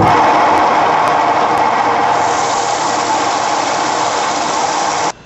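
Coarse sandpaper held against a manzanita bowl spinning on a wood lathe: a loud, steady sanding hiss over the running lathe. It starts and stops abruptly.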